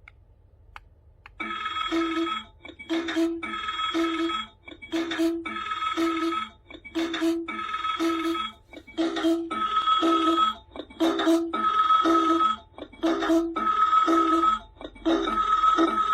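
Electronic alarm of an LED pixel alarm clock ringing: a repeating beeping ringtone phrase about once a second that starts suddenly and grows somewhat louder as it goes on.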